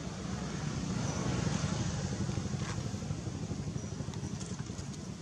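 Low engine rumble of a motor vehicle passing, growing louder about a second and a half in and then easing off.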